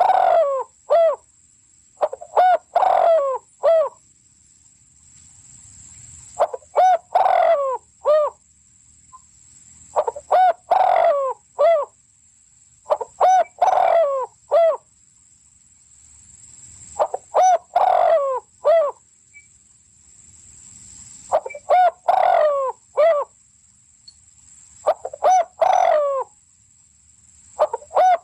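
A cock crowing a short phrase of about four clipped notes, repeated every three to four seconds, about eight times.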